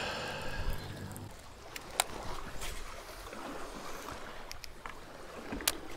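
Small waves lapping against the hull of a bass boat. An electric trolling motor hums steadily for just over a second, then stops. A few sharp clicks come from handling a baitcasting reel.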